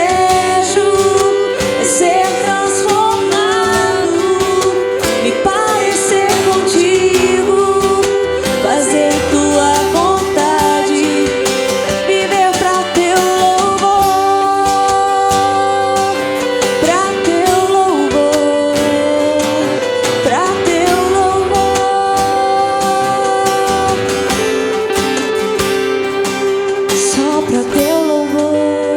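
Live worship music: a woman singing over acoustic guitars, electric guitar and percussion.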